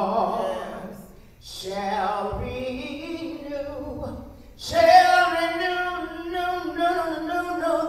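A woman singing a slow gospel song into a microphone, with a long held note through the second half.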